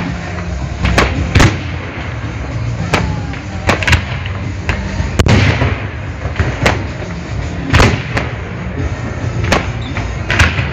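Fireworks display: aerial shells bursting in an irregular volley of about a dozen sharp bangs, each with a short echoing tail, over a steady low rumble.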